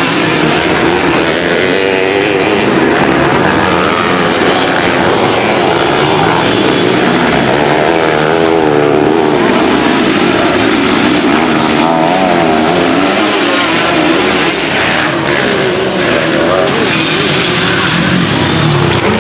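Two-stroke Kawasaki Ninja 150 R ('Ninja kebo') race motorcycle engine, loud and continuous, its pitch wavering up and down as the throttle is worked and the bike revs through the gears.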